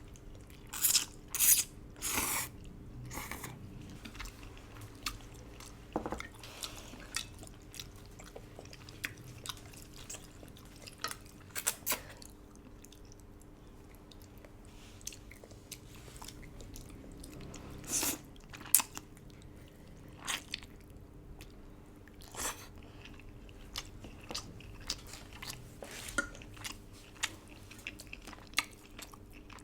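Close-up mukbang eating sounds: a person chewing and biting into herbal braised duck and noodles, with many short, sharp mouth and food noises, loudest in the first few seconds and again about 18 seconds in. A faint steady hum runs underneath.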